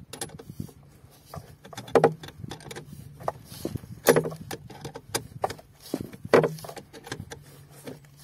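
10 mm spanner turning a battery terminal clamp nut: a run of small metallic clicks and clinks as the spanner is worked and re-set on the nut, with louder clanks about every two seconds.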